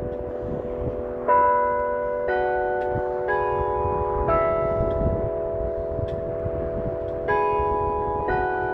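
Tower bells chiming a slow tune. Notes are struck about a second apart in a group of four, then there is a pause of about three seconds before the next group starts, and each note rings on under the next.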